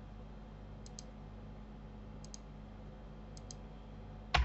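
Computer mouse clicking: three quick press-and-release pairs, about one a second, then a louder knock near the end, over a steady low electrical hum.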